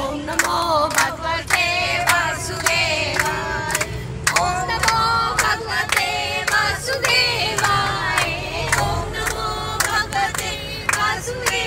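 A group of women singing together, clapping along in a steady rhythm, with the low rumble of a bus engine and road underneath.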